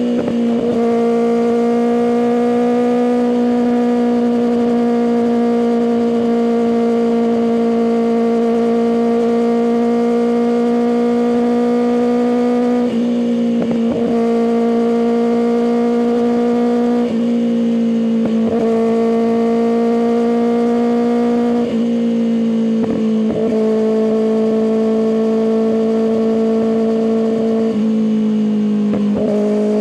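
Kawasaki ZX6R inline-four engine running through an M4 aftermarket exhaust while riding, holding a steady high-revving drone. It is broken four or five times by brief dips where the throttle closes, with the pitch settling slightly lower after one of them.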